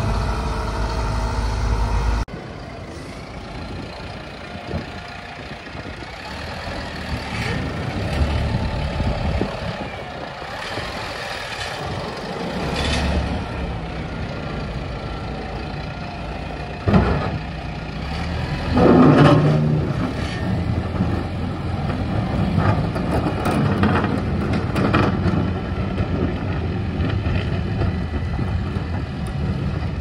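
Heavy snow-removal trucks and plows running, a steady low engine drone. A sharp knock comes just past the halfway point and a louder burst a couple of seconds later.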